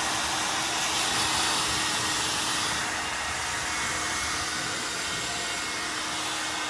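Hair dryer blowing steadily with a rushing hiss and a faint steady hum, switched off abruptly at the end.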